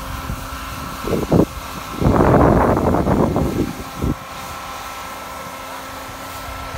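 Snowmaking fan gun running with a steady hum and rumble. About two seconds in there is a louder rough scraping burst lasting over a second, and shorter ones come before and after it.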